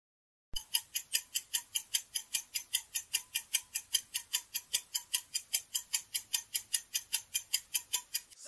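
Countdown timer sound effect: rapid, even clock-like ticks, about four to five a second, starting about half a second in and running while the quiz timer counts down to zero.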